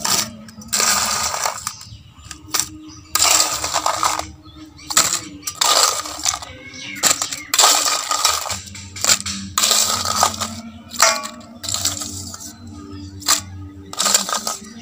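A steel spoon scraping crushed ice out of a steel bowl, with the ice clattering into plastic cups: about a dozen separate rattling scoops, roughly one a second.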